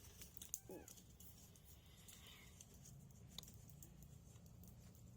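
Near silence: a steady low hum with a few faint clicks and one brief squeak about half a second in.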